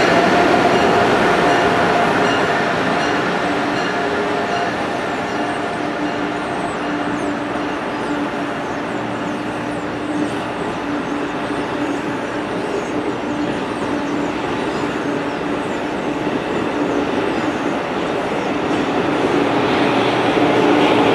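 An Amtrak Acela Express electric trainset runs through the station past the platform, with its wheels rumbling on the rails and a steady hum under it. It grows louder again near the end as the rear power car comes by.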